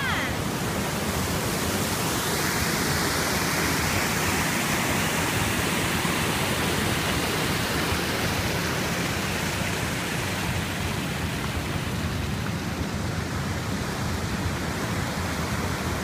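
Water of a small waterfall rushing over rock ledges: a steady, even rush of white water.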